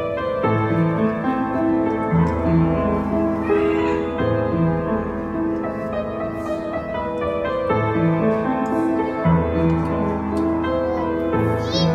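Instrumental background music with piano, in sustained notes over a repeating bass line.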